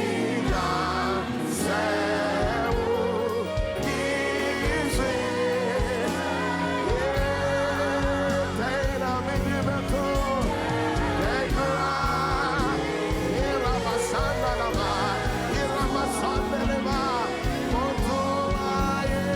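Gospel worship music: voices singing long, wavering lines over sustained band accompaniment with a steady beat.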